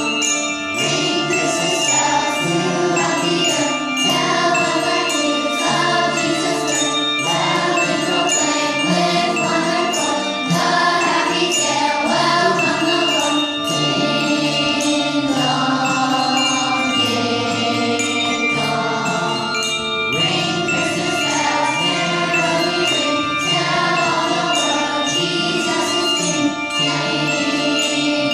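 A children's choir singing with handbell accompaniment, the bells' notes ringing on under the voices.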